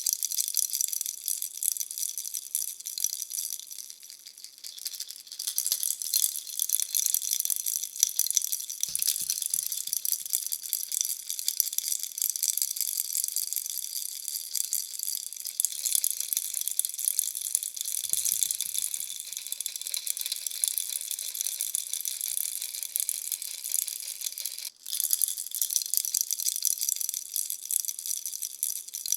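Bunny-shaped baby rattle being shaken, giving a continuous bright rattle. It eases off briefly about four seconds in and stops for an instant near the end.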